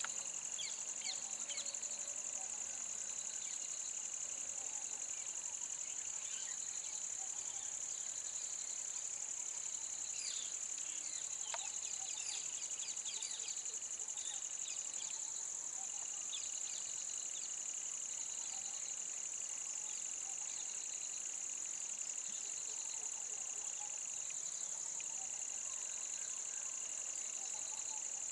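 Steady, high-pitched shrill chorus of insects from the roadside forest, with short bird chirps scattered through the first half.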